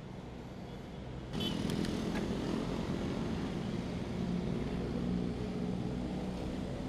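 Street traffic: a motor vehicle's engine running close by over road noise, with a steady hum that suddenly gets louder about a second in. Brief high ringing tones sound just after the jump.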